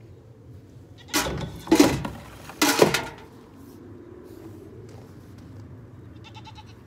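Goats bleating: three loud calls in quick succession in the first few seconds, then only faint outdoor background.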